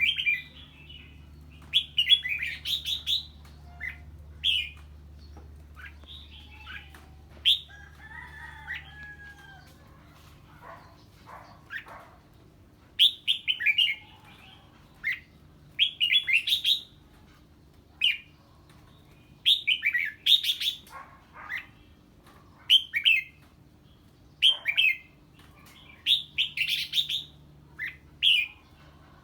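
Red-whiskered bulbul singing in short, quick chirping phrases, one every second or two, with a lull of a few seconds partway through.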